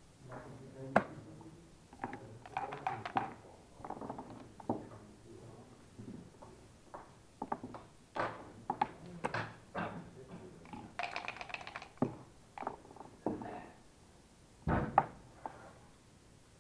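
Backgammon checkers and dice in play on the board: an irregular run of clicks, taps and knocks, with a few short rattles and a sharper knock about a second in and again near the end.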